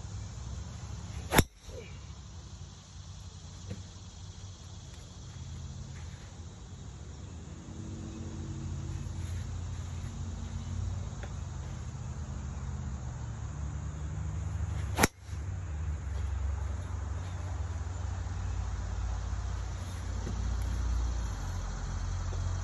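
Two sharp cracks about fourteen seconds apart: a golf driver striking a teed ball off a range mat. Between them a steady low rumble, louder in the second half.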